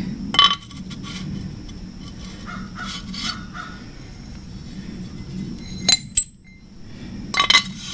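Loose metal parts and tools clinking as they are handled and set down: a few sharp clinks, about half a second in, near six seconds and a cluster near the end, over a steady low hum.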